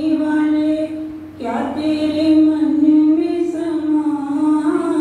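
A woman singing a Hindi bhajan, holding long drawn-out notes. She breaks off briefly about a second in, then sings on.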